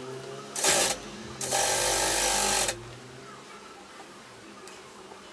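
Domestic sewing machine stitching through suede: a brief burst, then a longer run of just over a second before it stops. It is running a holding seam along the edge to keep the piece from shifting before pleating.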